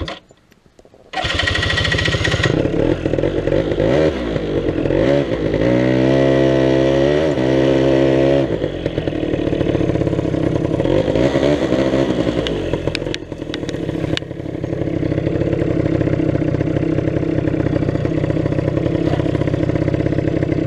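Quad bike (ATV) engine starting: a short first burst, then it catches about a second in and runs, revving unevenly as the quad is ridden over rough ground, with a steadier stretch in the middle.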